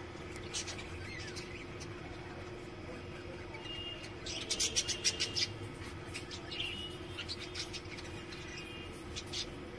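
Budgerigars chirping in short, quick notes, with a dense burst of chatter about four to five seconds in.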